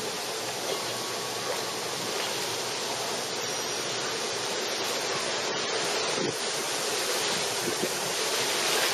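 Swimming-pool water sloshing and lapping: a steady rushing noise that grows slightly louder toward the end.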